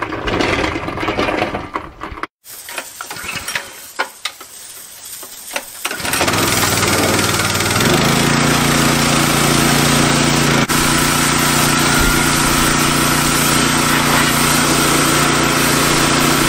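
Pressure washer's small gasoline engine starting about six seconds in and then running steadily, together with the hiss of the high-pressure spray. Before it come a few clicks and handling sounds.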